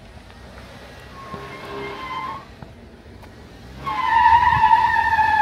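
Off-road Jeep's tyres squealing on rock as it crawls an obstacle: a short, fainter squeal about a second in, then a louder, longer one near the end.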